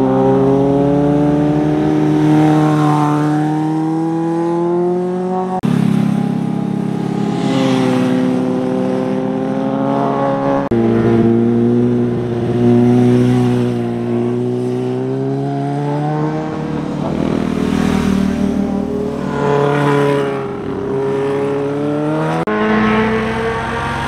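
Motorcycle engines heard as riders take a tight hairpin bend, several passes joined by abrupt cuts. Each engine rises in pitch as the rider accelerates out of the curve.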